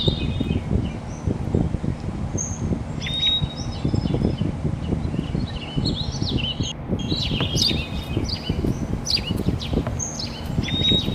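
Small birds chirping and whistling repeatedly in short, quick calls, over a continuous low, uneven rumble.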